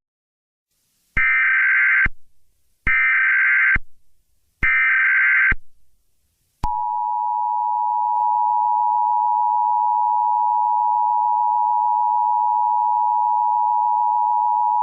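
Emergency Alert System tones: three short bursts of the SAME digital header, each under a second, then about halfway through the steady two-tone EAS attention signal (853 and 960 Hz sounding together), which holds at an even level.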